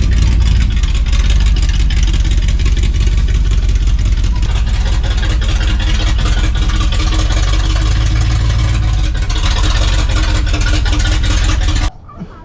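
1976 Chevy K10's small-block 350 V8 running at a fast idle, loud and steady, while it burns off water that got into the carburetor during the wash. It cuts off abruptly near the end.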